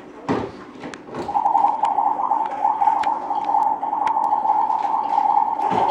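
Electronic sound effect from a toy play kitchen: one steady, slightly wavering tone that starts about a second in and holds for about five seconds, with a few light clicks of plastic parts.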